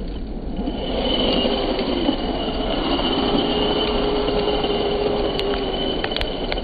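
Radio-controlled HPI WR8 truck driving hard on loose dirt: its motor whines, the pitch bending up and down with the throttle over a steady high tone, while the spinning tyres spray dirt. A few small ticks come near the end.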